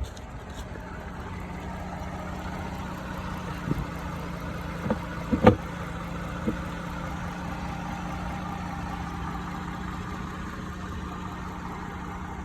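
2005 Toyota Avalon's V6 engine idling steadily after a repair, with a few brief knocks or clicks around the middle.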